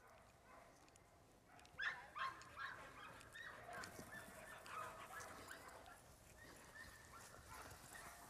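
Faint dog whines and yips: a string of short, high, pitched calls starting about two seconds in and going on, quieter, to the end.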